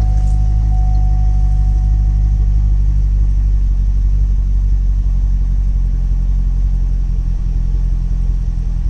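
Corvette C6's LS3 6.2-litre V8 idling steadily. It now runs smoothly with no misfire or vibration, after the cylinder 7 spark plug wire that had come off was reconnected.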